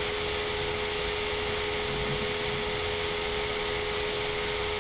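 Steady background hiss with a constant mid-pitched hum and no speech: the recording's own room and microphone noise.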